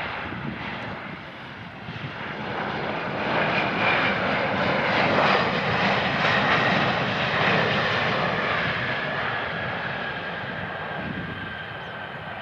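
Boeing 737-800 jet engines during the landing roll. The engine noise swells a couple of seconds after touchdown and is loudest mid-way. It then eases off, with a whine gliding down in pitch as the engines spool down.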